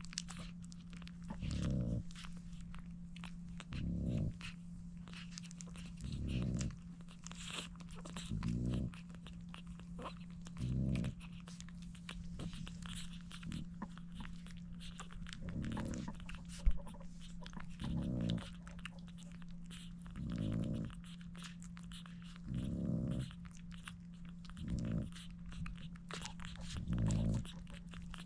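Newborn French bulldog puppies suckling at their mother's teats: quick, wet smacking clicks. Under them, a soft low pulse comes about every two and a half seconds over a steady low hum, and one sharp tap stands out about two-thirds of the way in.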